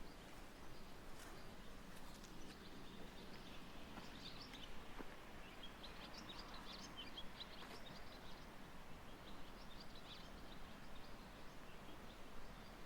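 Small birds chirping faintly in several short bursts of quick, high notes over quiet outdoor background noise.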